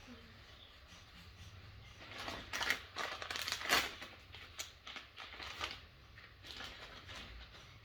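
Crinkling and rustling handling noise in a string of short, noisy bursts, starting about two seconds in, loudest around the middle and dying away about six and a half seconds in.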